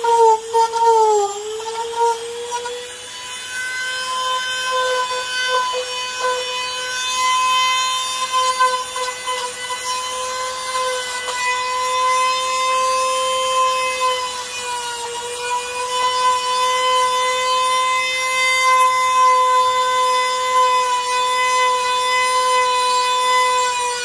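High-speed power tool running with a steady whine, its pitch sagging briefly as it is pressed into the work about a second in and again around fifteen seconds in.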